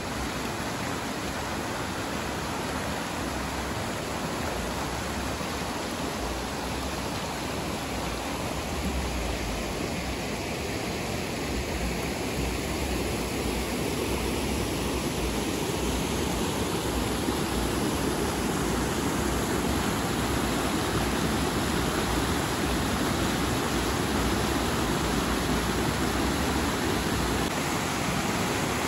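A river rushing steadily, slowly growing a little louder.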